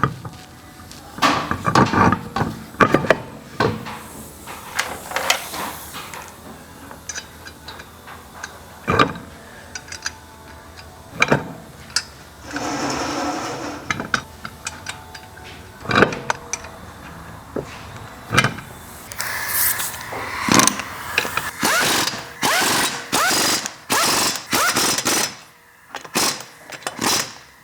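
Impact wrench running in short rattling bursts among metal clanks and knocks, as the lug nuts are run on to mount the wheel.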